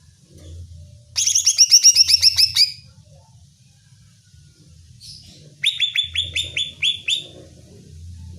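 Greater green leafbird (cucak ijo) calling in two bursts of rapid, falling whistled notes, each burst about a second and a half long, the second starting about two and a half seconds after the first ends.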